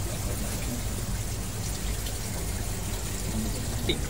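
Aquarium filters and air bubblers running: a steady trickle and bubbling of water over a low, steady hum.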